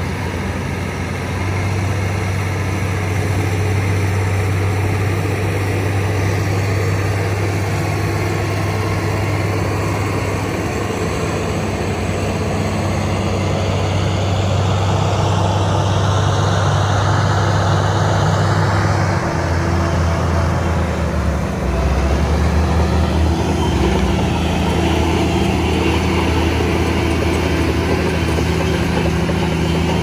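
Shantui crawler bulldozer's diesel engine running steadily as the dozer pushes soil, its engine note shifting about two-thirds of the way through.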